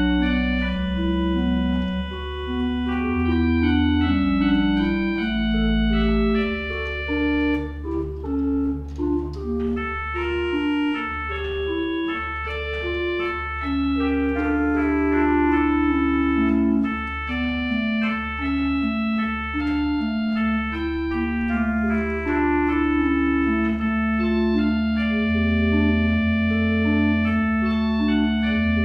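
Pipe organ playing a slow piece: chords and a moving melody line over steadily held low bass notes.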